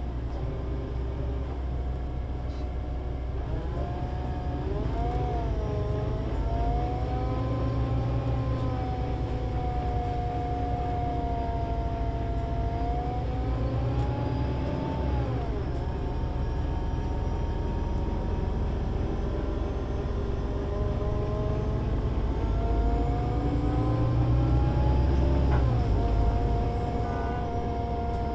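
Solaris Urbino 18 IV articulated bus with a 240 kW DAF diesel engine and Voith Diwa 6 automatic gearbox on the move: a steady low engine rumble under a whine that rises and falls in pitch with speed, swelling and then dropping sharply near the end.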